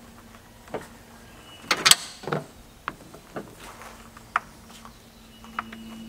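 Handling noises as a rubber hose and fitting are pushed onto a plastic intake port in an engine bay: scattered clicks and knocks, the loudest about two seconds in.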